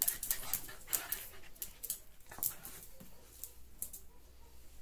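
Dogs' claws clicking irregularly on a tiled floor as two dogs move about, several quick clicks a second.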